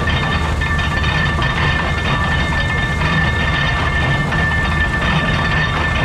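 Oliver Bale Master stationary baler running while being fed straw: a steady mechanical clatter with a regular low pulse and a constant high-pitched whine.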